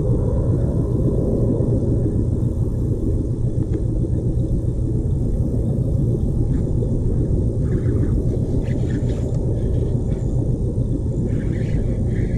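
A steady, loud low rumble with no clear pitch, with a few faint higher ticks in the second half.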